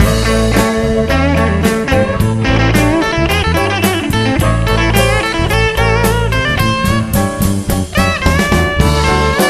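Electric Chicago blues band playing an instrumental passage with no vocals: a lead electric guitar plays bent, wavering notes over electric bass and drums.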